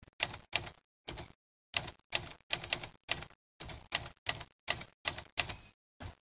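Rapid mechanical clacking in short irregular bursts, about fourteen of them with silent gaps between, like keys being struck.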